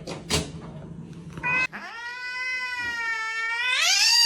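A cat's long, drawn-out meow that climbs higher in pitch near the end, preceded by a few short knocks and scuffles.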